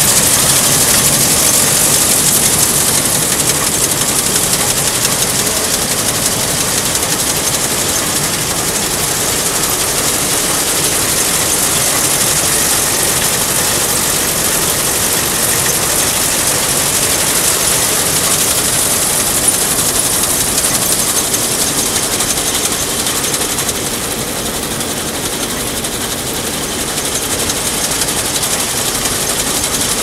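Claas combine running steadily with its F535 MaxFlex flex header mounted, a dense mechanical clatter with a strong high hiss that eases a little about 24 seconds in.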